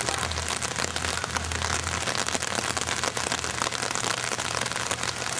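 Steady rain falling, crackling with drops that strike close to the microphone, with a low rumble during the first two seconds.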